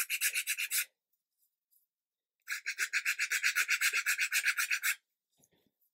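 A small hand file rubbed quickly back and forth along the edge of a small laser-cut MDF part, cleaning up the cut edge. There are two bouts of rapid scratchy strokes, about eight a second: the first stops about a second in, and the second runs from about two and a half seconds to five.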